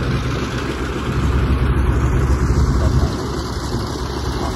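Steady low engine rumble.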